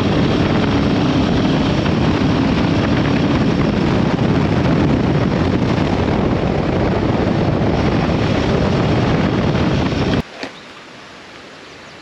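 Wind rushing over the microphone of a moving Royal Enfield Himalayan 450 motorcycle, with the engine faint underneath. The noise cuts off abruptly about ten seconds in to a much quieter background.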